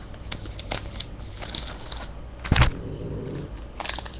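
Trading-card pack wrapper crinkling and rustling in the hands, with scattered light clicks and one thump about two and a half seconds in. The crinkling grows denser near the end as a new pack is handled.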